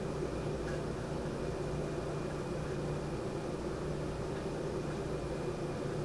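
Air-conditioning unit's fan running with a steady, even hum and whir.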